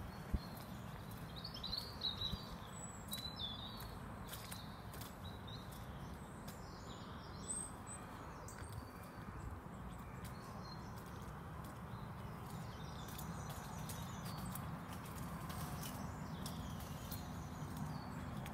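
Outdoor ambience: small birds chirping with short high calls, mostly in the first few seconds, over a steady low background rumble, with faint scattered clicks of footsteps on a wet road.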